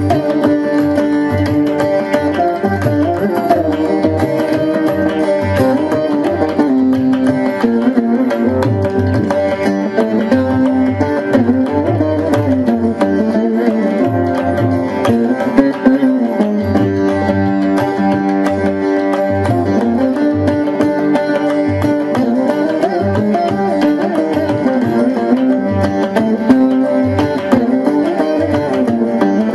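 Carnatic veena music, a plucked melody with sliding, bending notes over a steady hand-drum rhythm.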